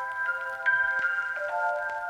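Background music: a gentle melody of bell-like mallet notes, like a glockenspiel or marimba.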